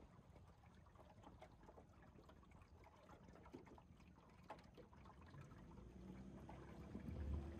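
Near silence: faint water lapping and trickling against a drifting boat's hull, with small ticks. A faint low hum comes in and grows near the end.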